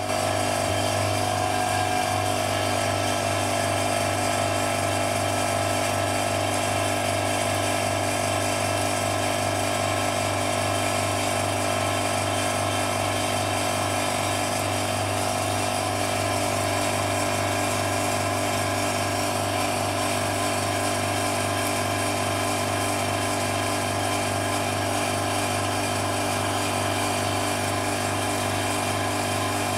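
Electric vacuum pump running steadily with an even hum, pulling a vacuum on a sealed chamber.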